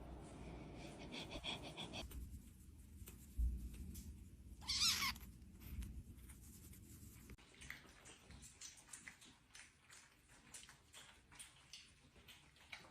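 A kitten meows once, loudly, about five seconds in, just after a thump. Soft rustling and small clicks fill the rest.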